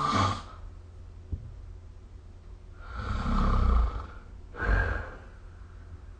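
A sleeping person snoring: the end of one snore at the very start, a rough snore about a second long about three seconds in, then a shorter, sharper snort just under a second later.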